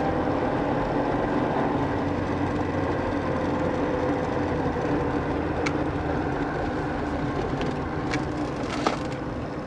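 The Opel Rekord E's 2-litre four-cylinder engine running steadily with an even hum, with a few light clicks in the second half.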